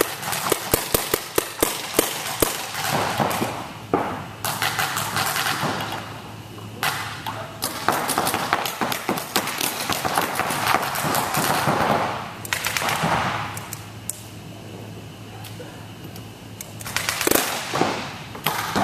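Paintball markers firing rapid strings of shots: a dense volley in the first few seconds, then further bursts of quick pops.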